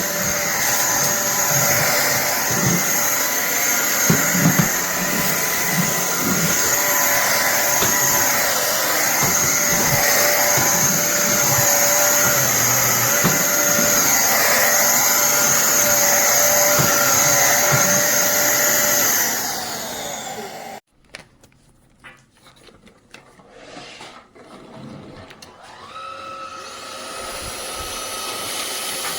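INTETURE BP10 cordless stick vacuum running with a steady high motor whine and some low knocks. About two-thirds of the way in the motor winds down and stops, followed by a few seconds of near quiet with light handling clicks, then it spins back up near the end.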